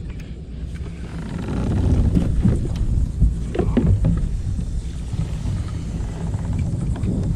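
Wind buffeting an action camera's microphone, a low rumble that swells about two seconds in and eases off later. A few brief sharp noises come through about three to four seconds in.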